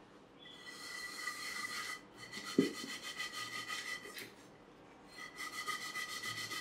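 A scrubber being rubbed hard back and forth over a stained pan wet with a baking soda and white vinegar paste. It goes in three bouts of quick scraping strokes: the first starts about half a second in, a short pause follows about four seconds in, and the last bout runs to the end.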